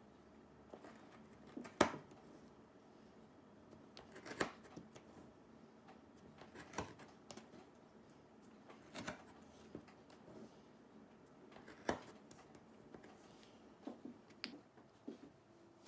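Sharp clicks and light taps from small metal hand tools being worked and handled, about one every two to three seconds, with a quick cluster near the end.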